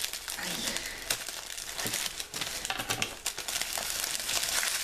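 Shiny orange gift wrap crinkling and rustling as a present is unwrapped by hand, a dense run of small crackles.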